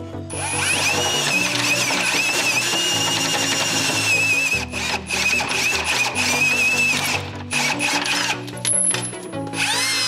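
Cordless drill driving a step bit into the sheet-steel underside of a car's frame, enlarging a hole. It gives a high, wavering whine as the bit cuts, steady for about seven seconds, then in shorter bursts, with a spin-up near the end. Background music with a steady beat plays underneath.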